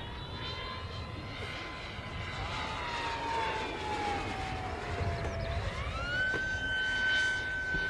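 Electric ducted-fan impeller of a Schreiner F-18 model jet whining in flight. Its pitch sinks slowly, then climbs quickly about six seconds in and holds higher as the fan speeds up.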